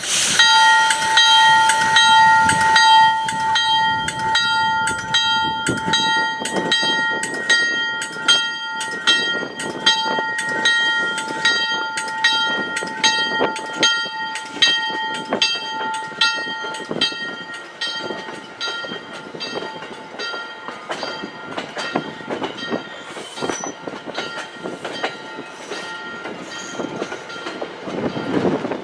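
MBTA commuter rail train of bi-level coaches rolling past, with a regular clicking about twice a second. A steady ringing tone sounds over it, strongest at the start and fading away after about the middle.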